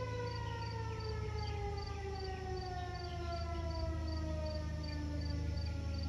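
Eclipse 8 and Model 2 outdoor warning sirens sounding the noon signal and winding down, their tone falling steadily in pitch after a held note.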